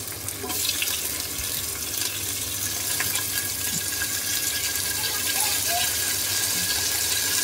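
Minced goat meat sizzling in hot oil with fried onions in an aluminium pressure cooker. The sizzle swells about half a second in as the raw keema goes into the oil, then stays steady.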